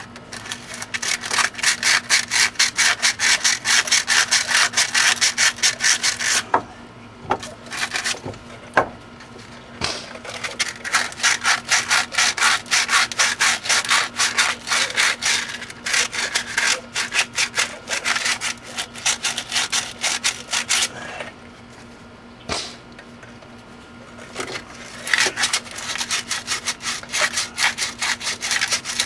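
Fast back-and-forth hand scrubbing on metal brake and hub parts, several strokes a second, in three spells with short pauses between them, cleaning rust and grime off the parts.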